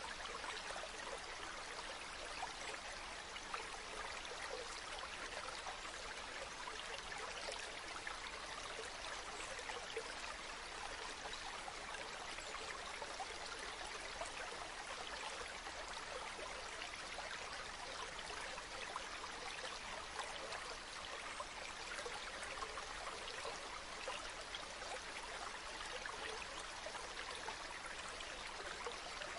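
Waterfall: water falling and splashing steadily, an even rushing hiss with fine spattering droplets and no change over time.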